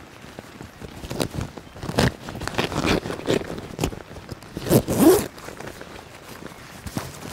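A zipper being pulled in several quick strokes, the loudest and longest about five seconds in.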